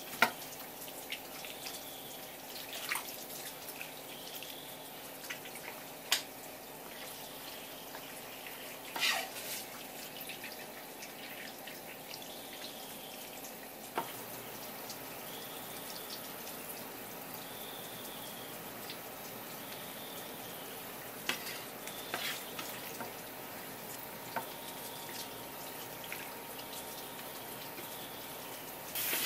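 Quiet wet handling of a spear squid on a wooden cutting board, as its skin is peeled off with a cloth, with a few sharp ticks over a steady low background.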